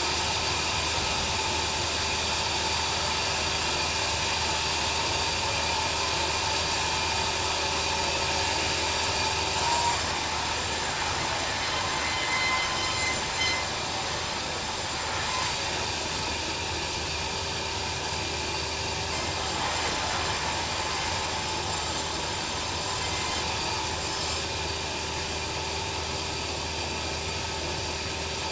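Bandsaw sawmill running steadily, a constant machine noise with a steady whine, the sound of the mill sawing timber into sizes.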